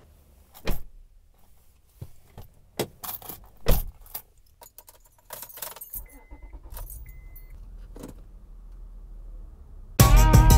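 Keys jangling and sharp clunks as a car door is shut and a key is fitted, then the car's engine starts and runs with a low hum under two short electronic chime beeps. Music comes in near the end.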